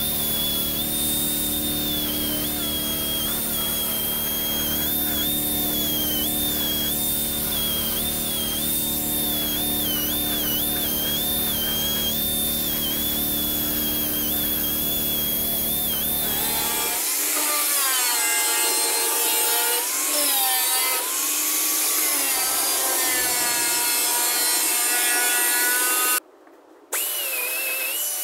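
Pneumatic angle grinder with a 2-inch Roloc sanding disc running against the cut edges of a steel sign, a high whine whose pitch wavers. About two-thirds of the way through the sound changes to a lower whine gliding up and down, and it cuts out briefly near the end.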